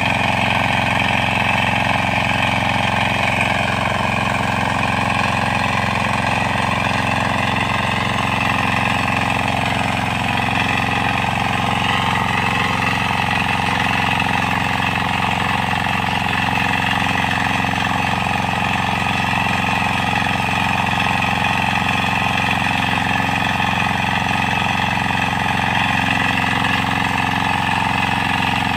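Kama 9 hp single-cylinder diesel engine of a walk-behind power tiller running steadily under load as its rotary tines till the soil.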